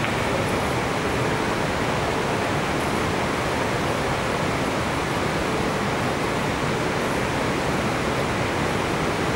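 Steady, even hiss of background noise with no ball strikes.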